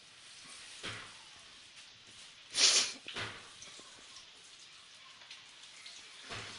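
Chicken pieces frying in hot grease: a steady crackle with a few sharper pops, the loudest about two and a half seconds in.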